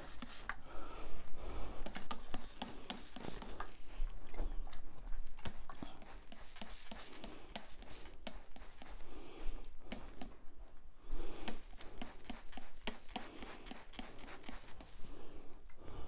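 Hand trigger sprayer spritzing a carpet pre-spray onto stains in several short hissing bursts, with scattered clicks from the trigger and handling between them.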